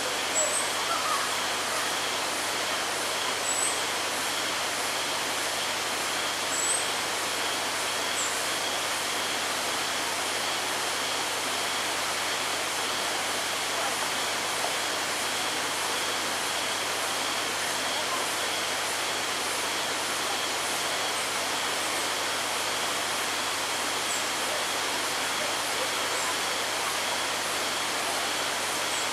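Steady outdoor ambience by a forest pool: an even hiss with a steady thin high drone, and a few short high chirps in the first several seconds, like birds in the trees.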